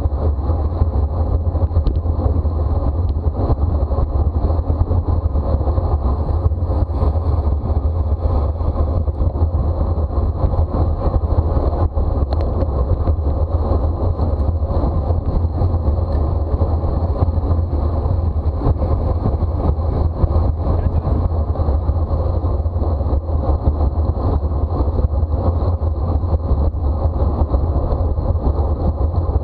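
Steady wind rush on a microphone travelling at racing speed on a bicycle, a heavy rumble with a faint thin high whine above it.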